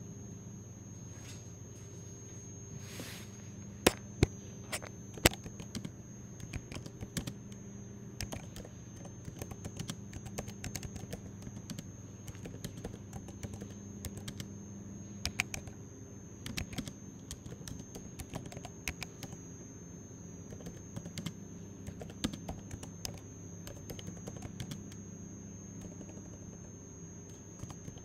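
Typing on a computer keyboard: irregular key clicks through most of the stretch, with three sharper, louder clicks about four seconds in, over a steady low hum.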